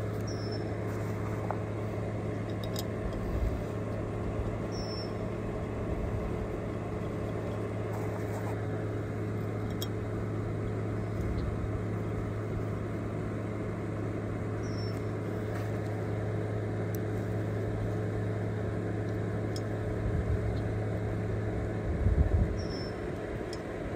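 Steady hum of a portable electric fan running, with a constant low drone and a steady mid tone. Faint light clicks as the cab-jack pump is handled, and a few low knocks near the end.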